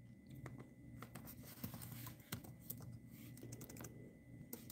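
Faint typing on a laptop keyboard: irregular soft key clicks.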